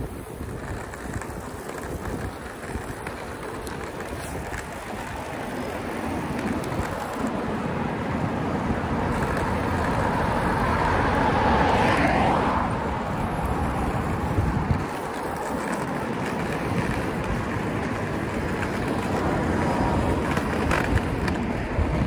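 Roller skate wheels rolling over road asphalt: a steady rumble that grows louder towards the middle, then eases slightly.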